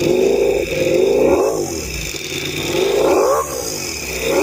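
Ducati Panigale V4R's V4 engine revved on the stand through an FM Projects titanium racing exhaust. It rises and falls in about three throttle blips.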